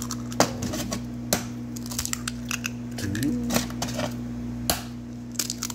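Eggs being cracked against the rim of a plastic mixing bowl: sharp cracks and taps of shell at irregular moments as they are broken open and dropped into the bowl, over a steady low hum.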